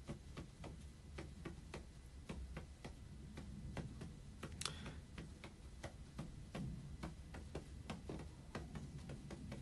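Faint, irregular clicking and tapping close to the microphone, a few clicks a second, with one sharper click about halfway through, over a low room hum.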